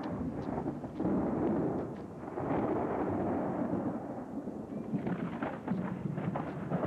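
Thunder rumbling in long rolls that swell and ease, with a cluster of sharper cracks about five seconds in.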